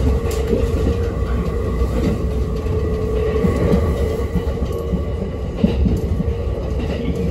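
Kintetsu electric train heard from inside the front of the car while running along the track: a steady low rumble with a steady hum over it, and one sharper knock about five and a half seconds in.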